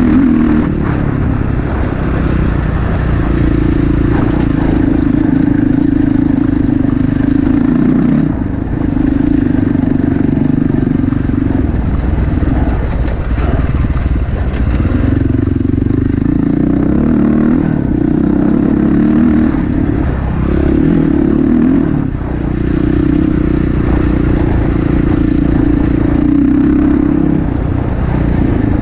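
Dirt bike engine running under way, its note holding for a few seconds at a time and then falling away several times as the throttle is opened and closed.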